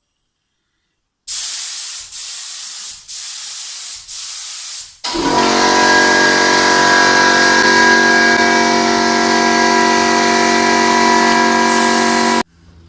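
Paint sprayer fed by a compressor, spraying paint in a few short hissing bursts while it is being adjusted. Then it runs continuously for about seven seconds, a loud steady hum under the spray hiss, and stops abruptly near the end.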